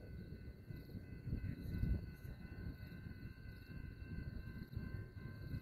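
Outdoor night ambience: a low, uneven rumble with faint, steady high-pitched tones running through it.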